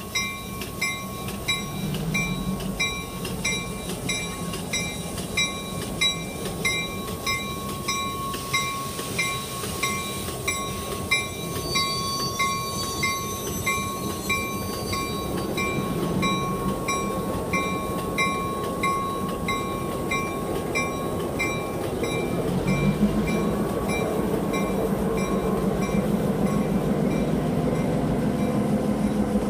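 HO-scale Walthers Milwaukee Road Hiawatha passenger train running toward and past, its low running rumble growing louder in the last few seconds as it goes by. A bell rings steadily about twice a second and fades out near the end.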